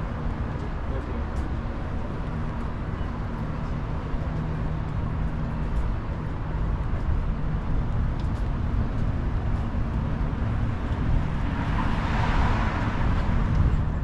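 Road traffic running past: a steady low rumble of passing vehicles, with one vehicle's tyre noise swelling louder near the end.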